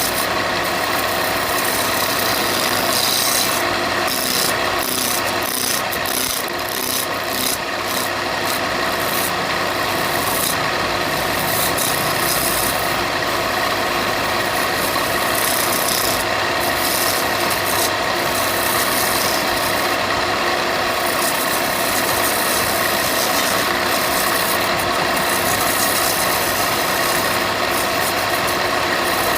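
Electric power tool running steadily while it works wood, a continuous motor tone under a rasping, rubbing grind on the timber.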